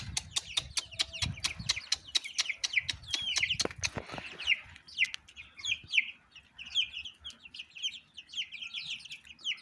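Chicken chicks peeping: a rapid run of short, high, falling cheeps. Sharp taps and clicks sound among them for the first few seconds.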